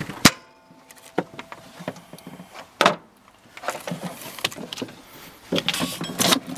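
Hands working an old serpentine belt loose in a van's engine bay: irregular scrapes, rubs and light clicks of the rubber belt, sleeves and parts being handled. A sharp knock comes about a quarter second in.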